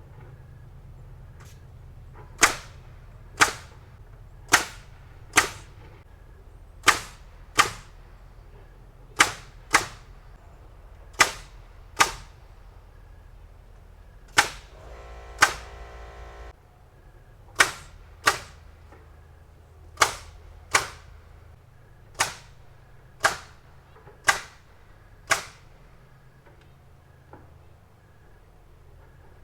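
Pneumatic nail gun firing about twenty times, mostly in pairs under a second apart, with a pause of a second or two between pairs, typical of nailing sheathing strips down. A low steady hum runs underneath and stops about halfway through.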